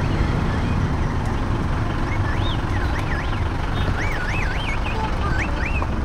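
Street traffic running steadily, with a high warbling whistle that rises and falls several times over the second half.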